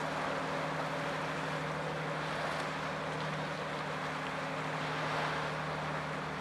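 Steady low drone of a passing ship's engine, several hum tones holding constant, over a hiss of wind and sea.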